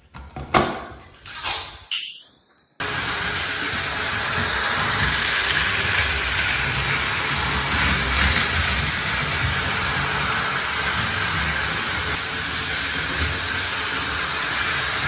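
Battery-powered Plarail toy train running on plastic track: a steady whirring and rattle that starts abruptly about three seconds in, after a few short knocks.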